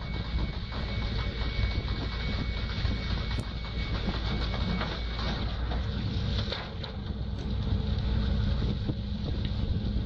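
Steady low rumble of a fishing boat's engine and net-hauling gear, with a thin high whine for the first four seconds or so and scattered knocks and clatter as a net full of cannonball jellyfish is hoisted and emptied into a deck hopper.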